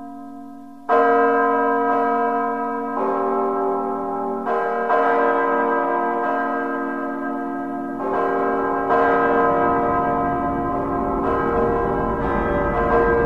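Deep church-style bells tolling in the dramatic score, struck again every one to three seconds with each strike ringing on. A low rumble builds beneath them in the second half.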